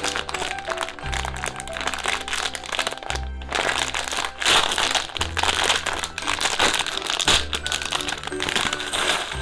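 Clear plastic bag of mini building blocks crinkling as hands squeeze and pull it open. Background music with steady bass notes plays throughout.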